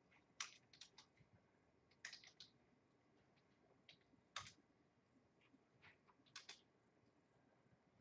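Faint computer keyboard typing: short scattered bursts of key taps with pauses between them.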